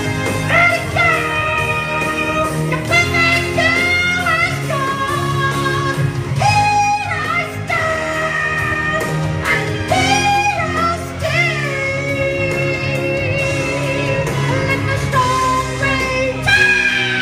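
A song with a singing voice over guitar-backed music, played through a PA speaker, with long held sung notes.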